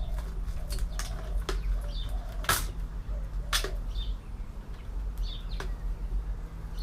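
Scattered clicks and knocks of computer parts being handled and set down, the two loudest about two and a half and three and a half seconds in, over a steady low hum.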